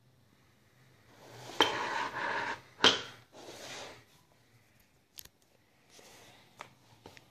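Hands handling the open cardboard box and the metal-caged USB miner: rustling with two sharp knocks about a second and a half and three seconds in, then a few lighter clicks as the device is set down on the wooden floor.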